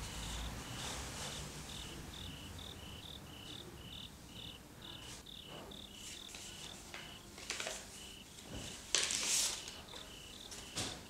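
Crickets chirping in a steady rhythm of short, evenly spaced chirps, with several brief rustles of paper as a letter is handled. The loudest rustle comes near the end.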